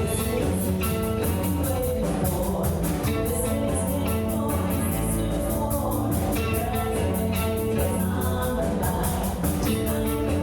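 Live rock band playing a song: guitars and drums, with a singing voice.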